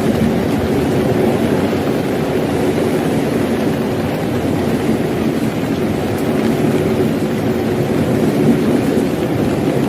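A passing train's steady, even rumble.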